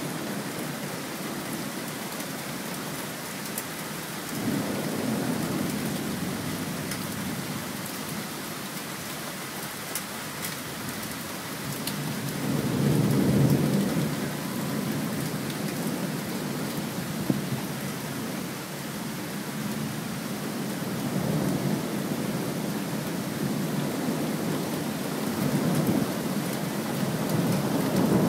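Thunderstorm: steady rain hiss with rolling thunder. Low rumbles swell about four seconds in, a louder roll comes around twelve to fourteen seconds, and another builds near the end.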